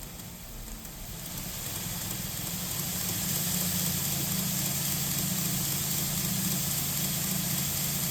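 3x79 belt grinder switched on: the motor and abrasive belt spin up over the first few seconds, then run steadily with a low hum and a high belt hiss.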